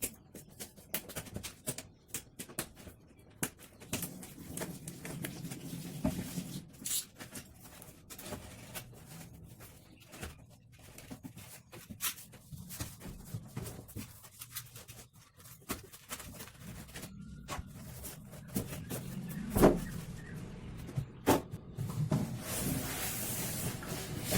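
Irregular clicks, knocks and rustles, with a few heavier thuds, typical of packaging being handled and opened.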